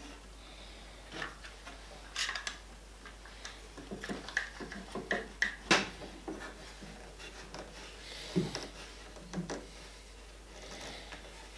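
Bar clamps being set and tightened on a freshly glued wooden rail: a scatter of short clicks and knocks of the clamp jaws and bars against the wood, the loudest about halfway through and again a little later.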